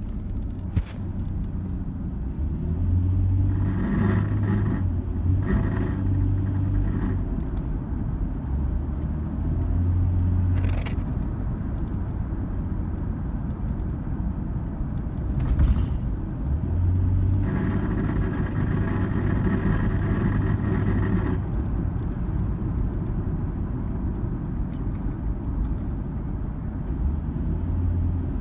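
Nissan Xterra engine running while driving, heard inside the cab, with a metal-on-metal grinding noise from under the passenger-side floor. The grinding comes in twice briefly around four and six seconds in, then for a longer stretch from about 17 to 21 seconds. It is typical of the truck at around 2000–3000 RPM, and a mechanic put it down to the exhaust rattling.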